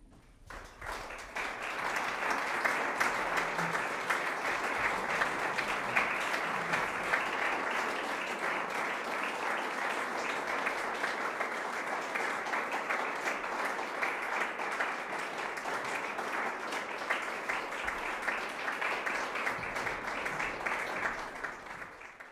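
Audience applauding. The clapping breaks out of near silence, swells over about two seconds, stays steady, and dies away near the end.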